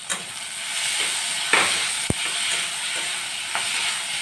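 Onions and capsicum sizzling in oil in a steel kadai while a metal spatula stirs and scrapes them, with a few sharp clicks of the spatula against the pan, the loudest about a second and a half and two seconds in.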